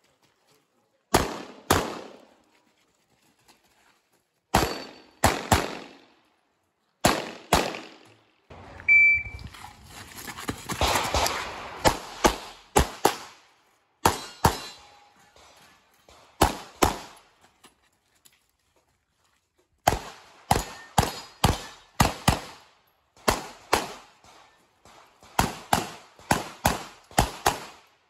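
Glock 48 9mm pistol fired in quick pairs, the two shots of each pair about half a second apart, with about a dozen pairs in all. A short beep comes about nine seconds in, within a few seconds of rustling, clattering noise.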